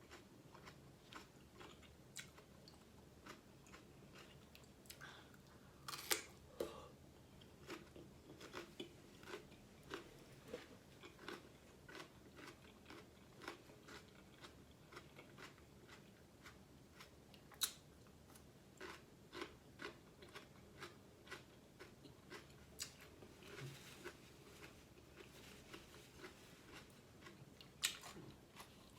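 Close-miked chewing and biting of seafood boil food: a continuous run of faint wet mouth clicks and crunches, with a few sharper clicks about six seconds in, in the middle and near the end.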